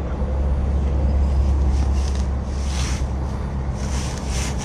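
A steady low rumble, with soft rustling and scraping about two seconds in and again near the end as plastic seawater pump parts are handled and fitted together.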